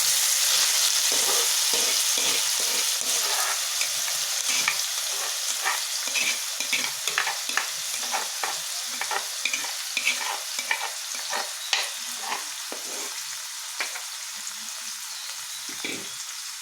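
Boiled cucumber pieces sizzling in hot coconut oil in a frying pan while being sautéed, with a spoon clicking and scraping against the pan as they are stirred. The sizzle is loudest at first and gradually dies down as the wet pieces settle into the oil.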